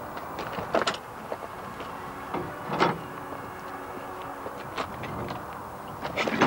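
Knocks and clunks of a Jawa speedway bike being lifted and wheeled out of the back of a van, over a steady background hiss. Several separate knocks, the loudest about three seconds in and a quick run of them near the end.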